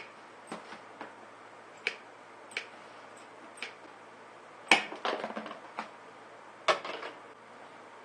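Tin snips cutting a round fan hole out of a thin plastic tote lid: a series of sharp clicks as the blades bite through the plastic, spaced out at first, then a louder cluster of quick cuts about halfway through and another near the end.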